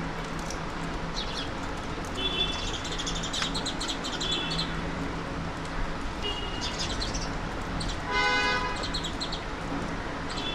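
Alexandrine parakeets calling: repeated short, high chirps, then about eight seconds in a single louder, harsh squawk. A steady low hum runs underneath.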